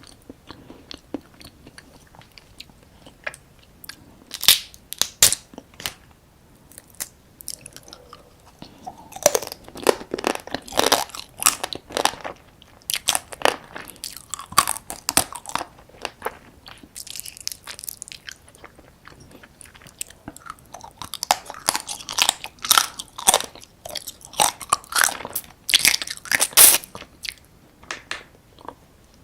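Close-miked eating of soy-sauce-marinated raw crab (ganjang gejang): crab shell cracking and crunching between the teeth, with wet chewing, in irregular clusters of sharp crackles and quieter pauses between bites.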